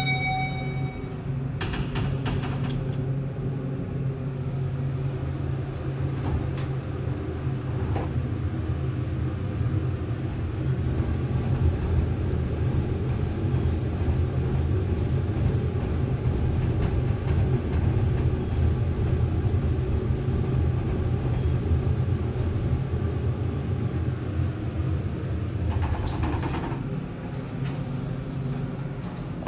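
Parking-garage passenger elevator car in travel, heard from inside the car: a steady low hum and rumble. It starts about two seconds in after some clunks from the doors closing and dies away near the end as the car stops, with more door clatter.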